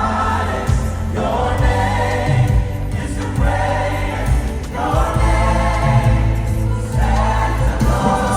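Gospel music with a choir singing over a strong, steady bass.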